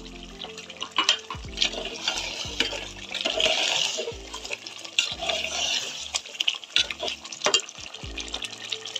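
Metal slotted ladle stirring thick, bubbling chicken masala in a metal pot: wet stirring and sizzling, with the ladle clicking and scraping against the pot many times. The stirring is loudest about three to four seconds in.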